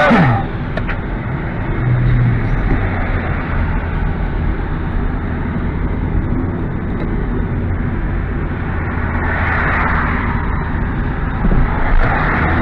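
Steady rumble of engine and road noise heard inside the cabin of a Hyundai i30 estate car, with a short sharp falling whoosh right at the start.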